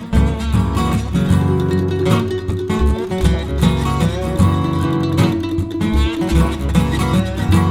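Background music: a strummed and plucked acoustic guitar playing a rhythmic instrumental.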